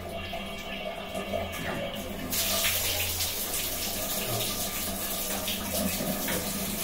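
Water running at a two-stage household water filter over a low steady hum. About two seconds in, a sudden louder rush of splashing water starts as the second filter housing is unscrewed and comes off; its cartridge is clogged with iron from the water.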